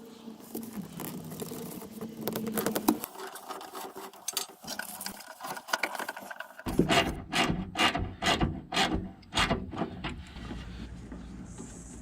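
Rubbing and scraping of parts or tools being handled. Partway through it becomes a run of sharp clicks, about two or three a second.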